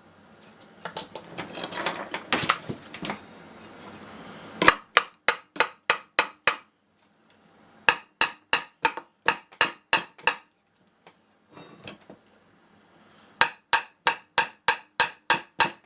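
Scratchy rubbing for the first few seconds, then a hammer tapping on a Tecumseh engine's sump plate in three quick runs of about four strikes a second. The taps are driving the plate off a corroded crankshaft.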